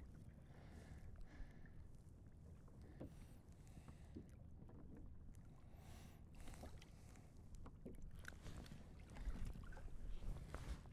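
Faint steady low rumble of wind and small waves lapping against a kayak hull at sea, with a few light knocks and clicks, a little louder near the end.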